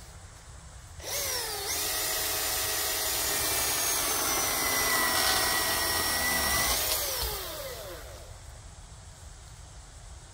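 Milwaukee M18 FUEL 14-inch cordless chainsaw (2727-20), brushless electric motor, spinning up about a second in and cutting into a fallen tree limb with a steady whine that sags slightly under load. It rises briefly, then winds down and stops about eight seconds in.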